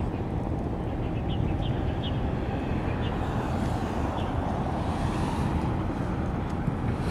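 Steady low outdoor rumble of wind on the microphone and distant engine noise, with a few faint short chirps in the first half.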